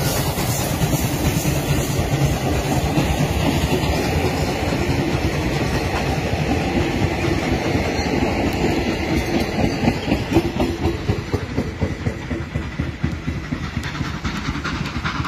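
Steam-hauled passenger train passing close by: the coaches roll past with a steady rumble and the clickety-clack of wheels over the rail joints.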